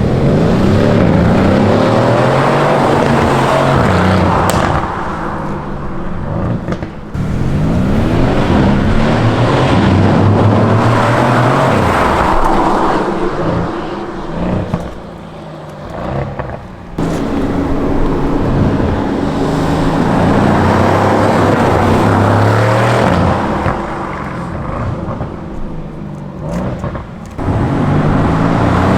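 Mercedes C63 AMG V8 on its standard non-flap exhaust, accelerating hard with the engine note climbing three or four times. Between the climbs it lifts off, and overrun pops and crackles (the misfire bangs its software update brings on) come through the exhaust.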